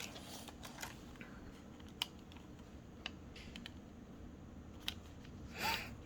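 Faint, scattered clicks and taps of paper cut-outs and craft tools being handled on a desk, about five light ticks spaced a second or so apart, with a brief soft noise near the end.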